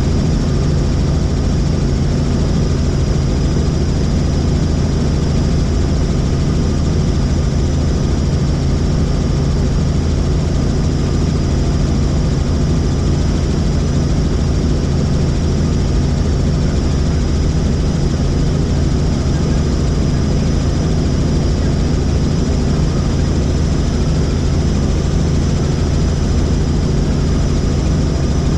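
Helicopter in flight: a loud, steady drone of engine and rotor with a thin high whine above it, unchanging throughout.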